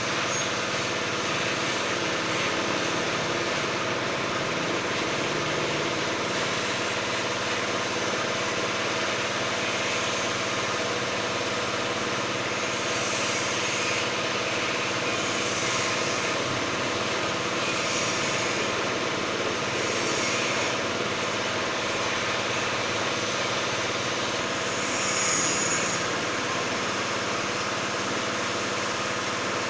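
Lakoni Daytona 120 G pressure washer running steadily: a constant motor hum under the hiss of the high-pressure water jet. The hiss grows louder several times in the second half.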